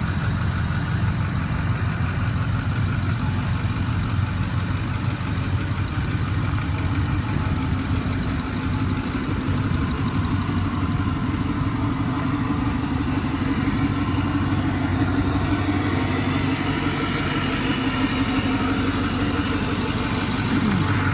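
Ford 6.4L Power Stroke V8 diesel engine of a 2008 F550 service truck idling steadily.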